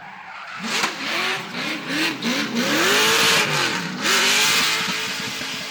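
Drift car under throttle: the engine revs rise and fall in several quick bounces, then through one longer climb and drop, with a broad hiss of tyre noise over the loudest part as it slides past; the sound fades near the end.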